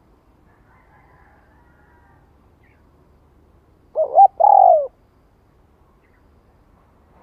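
Spotted dove cooing once, about four seconds in: a short call of two quick notes and then a longer coo that falls away at the end.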